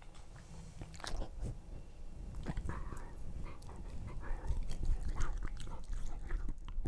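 Samoyed puppy biting a piece of melon off a metal fork and chewing it right at the microphone, with a fork click about a second in and a dense run of wet biting and chewing sounds from about two and a half seconds in.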